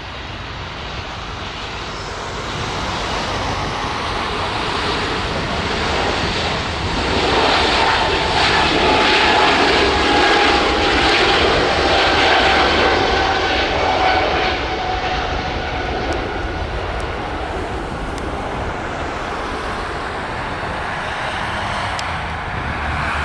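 Airbus A220-300's Pratt & Whitney geared turbofan engines at takeoff thrust as it rolls down the runway, lifts off and climbs away. The roar builds to its loudest in the middle, where the engine whine falls slowly in pitch as the jet passes, then eases somewhat as it climbs out.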